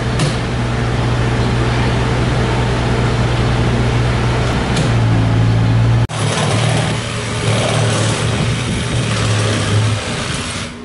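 Machinery running with a steady low drone. It breaks off abruptly about six seconds in and resumes with a harsher, hissier edge, and the low hum drops out near the end.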